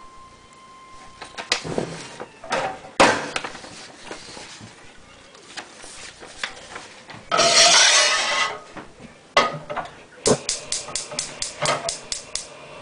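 Handling noises at a table: a few sharp knocks, a loud rustling scrape lasting about a second, then a fast run of about ten clicks near the end.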